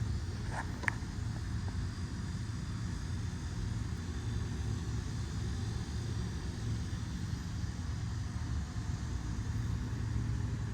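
Steady low drone of a running engine, with a couple of faint clicks about a second in.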